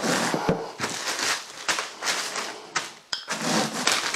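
Wooden rolling pin rolled over oven-dried bread slices in a plastic zip-top bag, crushing them into crumbs with a dense crackle and plastic crinkling. After a short pause about three seconds in, the bag rustles as it is picked up and opened.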